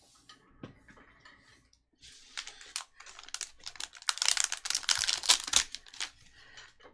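Foil trading-card pack crinkling and tearing as it is ripped open. It is a quick run of sharp crackles that starts about two seconds in and is loudest in the middle.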